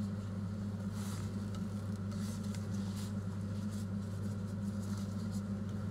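A steady low hum runs throughout, with faint soft rustles as thin spring roll wrappers are peeled apart by gloved hands.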